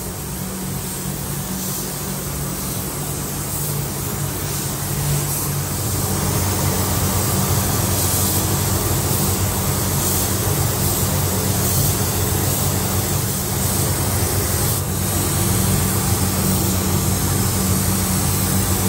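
Gravity-feed paint spray gun hissing steadily as it lays a coat of sealer, over a low steady hum.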